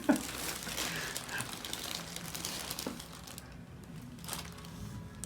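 Rustling and crinkling of handling and movement, dying down after about three seconds, with one soft click a little later.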